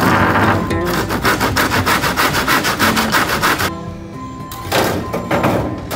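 Hand saw rasping back and forth through a wooden board, over background music.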